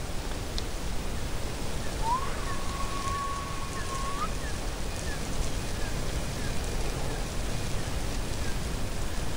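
Steady rushing noise, like heavy rain. About two seconds in, a whistle-like tone slides up and holds for about two seconds, and faint short falling chirps repeat above it.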